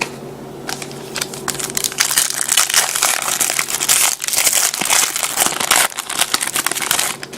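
Trading-card pack wrapper crinkling and tearing as a pack is opened: a dense crackle of small clicks, loudest from about two seconds in until shortly before the end.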